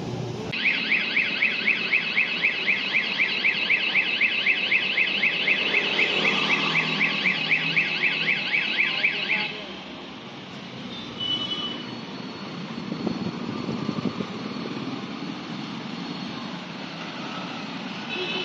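Electronic alarm warbling fast, about four rising-and-falling sweeps a second, for about nine seconds before it cuts off. Street traffic runs on underneath, with a few short high beeps afterwards.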